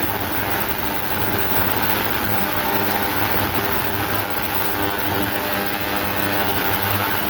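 Ultrasonic cleaner running with the stripped-down mower carburettor in its bath: a steady hum with a hiss over it.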